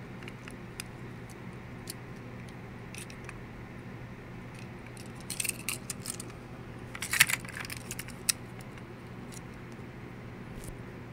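Small die-cast toy cars clinking and clicking against each other as they are handled: scattered light clicks, two busier clusters of clinks a little past halfway, then one sharp click, over a steady low hum.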